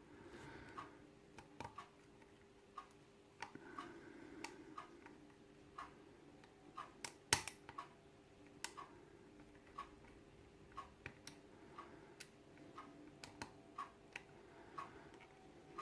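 Faint, irregular metallic clicks and ticks from a hook pick and tension wrench working the pin stack of a KIK lock cylinder: pins being lifted and clicking as they set. One click, about seven seconds in, is louder than the rest.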